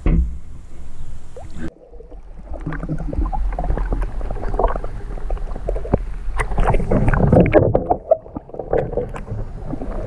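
Water sloshing and gurgling around a submerged action camera in shallow water, heard muffled, with many small knocks and clicks. It starts with a splash, drops off sharply about two seconds in, then builds again as the water churns.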